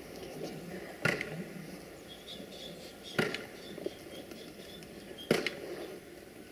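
Narrow-gauge steam locomotive 762.209 moving off at a crawl: three sharp exhaust chuffs about two seconds apart, over a low hiss of steam.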